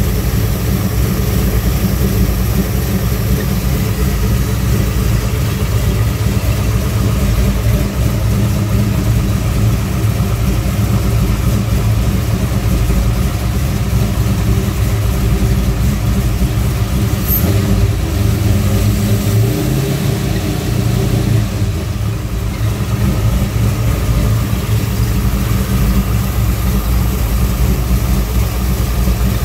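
Car engine idling steadily, with the serpentine belt running quietly: no popping from the belt riding the edge of the power steering pump pulley.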